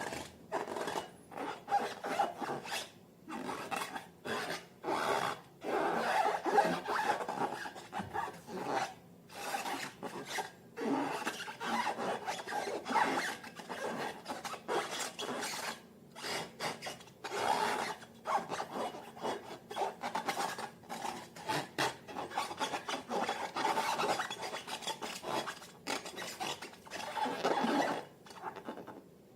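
Irregular rubbing and rasping with many short sticky crackles, from slime and long latex balloons being worked by hand. It goes on throughout, with brief gaps.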